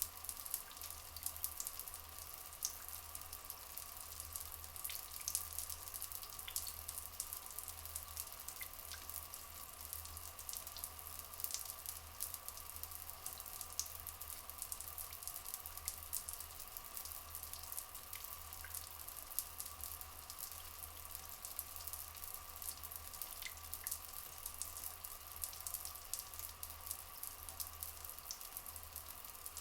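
Rainforest ambience of flowing water: a steady, dense trickle full of small drips and crackles, with a faint steady tone underneath.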